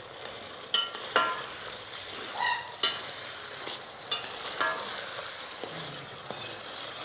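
Metal spoon stirring a thick meat curry in a steel pot, the curry sizzling steadily, with about five sharp clinks and scrapes of the spoon against the pot's side.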